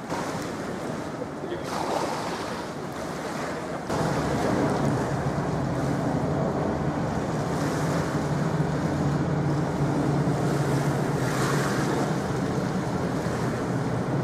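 Wind buffeting the microphone by a tidal river, over a steady low hum that grows louder about four seconds in.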